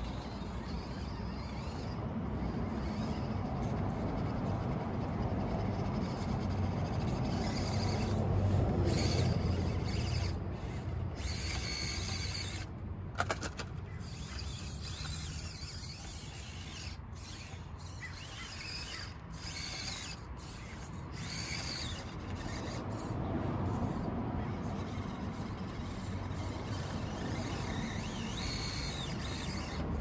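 Axial SCX24 micro RC crawler's small electric motor and gears whining as it crawls over rocks, rising and falling with the throttle. A sharp click about 13 seconds in.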